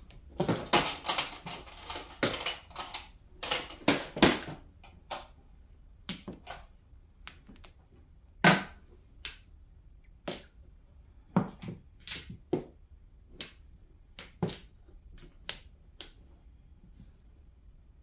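Plastic mahjong tiles clacking against each other and the table as they are drawn and discarded. A quick clatter of clicks over the first few seconds, then single sharp clacks about once a second.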